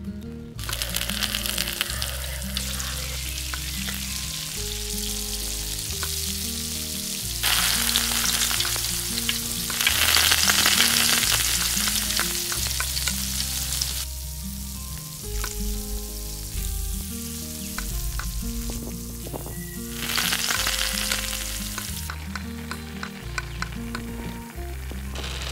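Food frying in ghee in a tiny clay pot and being stirred with a small spoon. The sizzling comes in waves, loudest around the middle, with light clicks of the spoon against the pot in the quieter stretches.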